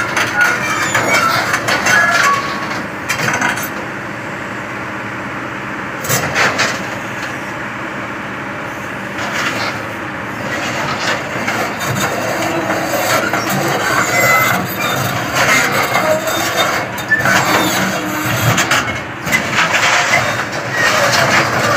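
Kobelco SK200 excavator's diesel engine running as the machine crawls on a steel lowbed trailer deck, its steel tracks clanking and knocking against the deck. It is steadier for a few seconds in the middle and busier with clanks in the second half.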